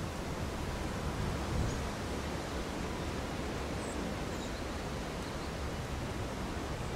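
Steady wind noise on the microphone: an even hiss with a low rumble and no distinct events.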